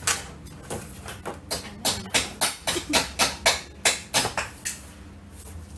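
Packaging being handled: a quick run of sharp taps and rustles, about three a second for three seconds, as a bag in a satin dust bag and a cardboard gift box are moved about.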